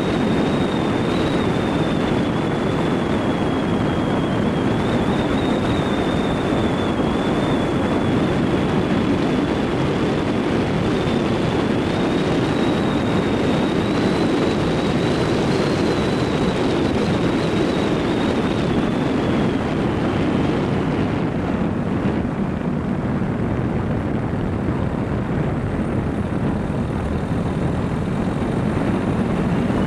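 Dacia Logan driving on an unpaved road, heard from inside the car: steady, loud engine, tyre and wind noise, with a faint high whine that fades out about two-thirds of the way through.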